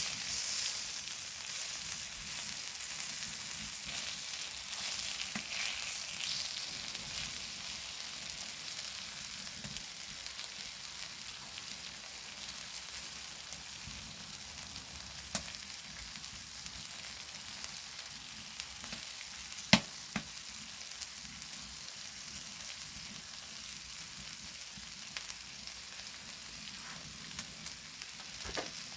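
Pork belly and gopchang (grilled intestines) sizzling on a hot flat stone over a wood-burning stove: a steady hiss, with a sharp pop about halfway through, a louder one a few seconds later, and a few small ticks near the end.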